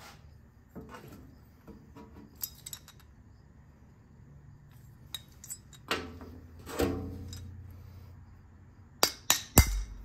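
Small metal parts and hand tools clinking and tapping on a metal workbench while a small-engine cylinder head is being dismantled. There are scattered light clinks, and a quick run of sharper clinks near the end.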